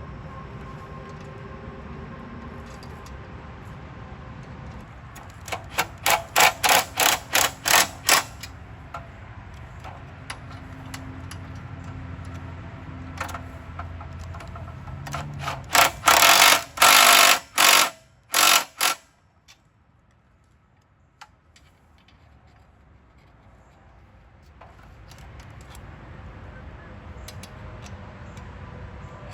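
A power tool worked on the chipper's blade nuts and bolts in short bursts: about eight quick pulses early on, then a few longer runs about ten seconds later, over a steady low hum.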